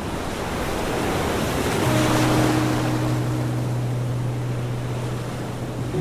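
Ocean surf rushing in, swelling to a peak a little after two seconds in and then easing off. A low steady hum is held underneath from about two seconds in.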